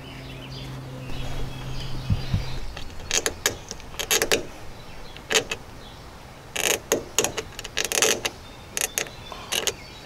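Small screwdriver pick scraping thick corrosion out of a side-post battery cable terminal: irregular runs of short, sharp metal scraping strokes from about three seconds in, like nails on a chalkboard. A low steady hum sounds during the first two seconds or so.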